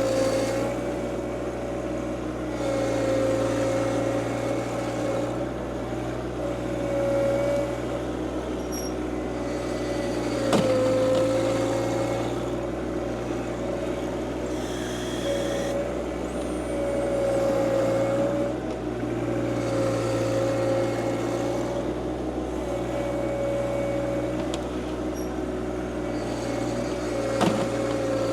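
John Deere 2025R compact tractor's three-cylinder diesel running under varying load while the backhoe works, its steady whine dipping and rising every couple of seconds. A sharp clunk comes about ten seconds in and another near the end.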